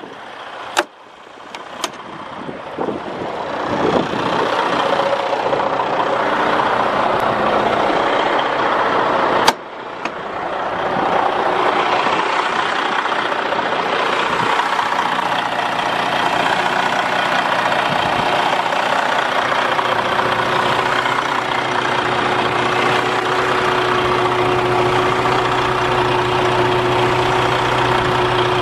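Detroit DD15 inline-six diesel of a semi truck idling, growing louder over the first ten seconds and then running steadily. A couple of clicks come in the first two seconds and a sharp clack about nine and a half seconds in.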